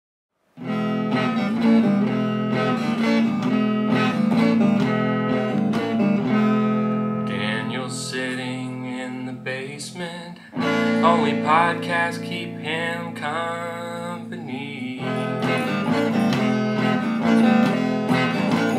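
Music: an electric guitar strumming chords, starting about half a second in, with a melody line that bends in pitch through the middle and a brief dip just past halfway.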